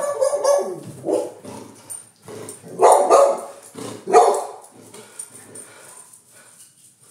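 A dog barking repeatedly in short bursts, loudest around three to four seconds in, then dying away near the end.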